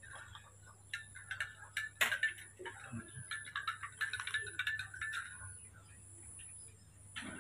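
A metal spoon clinking lightly against a glass of milk as it is stirred: a run of small ticks, with one sharper clink about two seconds in. Faint high chirping runs over it for the first few seconds.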